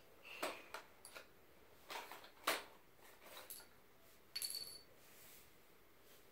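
Light clicks and taps of colored pencils and their cardboard box being handled by a baby on a tile floor, irregular and scattered, the loudest about two and a half seconds in. About four and a half seconds in, a brief tap leaves a short, thin ring.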